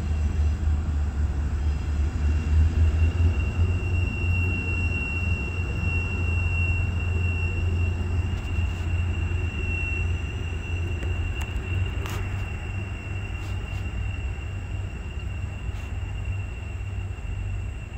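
Diesel locomotive pulling a local freight train out of a rail yard, its engine a steady low rumble, with a thin steady high-pitched squeal over it. One sharp click comes about twelve seconds in.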